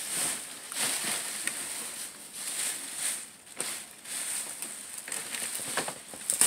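Rustling and crinkling of gift packaging being handled and torn at, with scattered light clicks and a sharper knock near the end.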